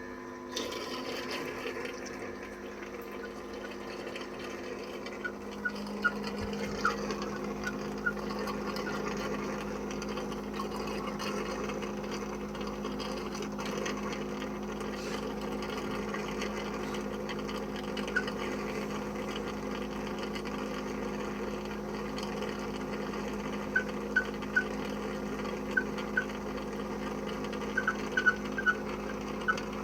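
Dreame X40 Ultra Complete robot vacuum washing its mop pads in the base station: a steady motor hum with water. Short high squeaks break through it, a few about six seconds in, then in quick clusters toward the end. The owner takes the squeaking for a fault, though the store's service centre found no defect.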